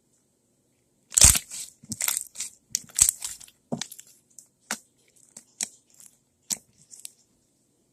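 Freshly made white glue slime being poked and squeezed by hand, giving a run of sharp pops and crunches. It starts about a second in with the loudest pop, then the pops come sparser and quieter.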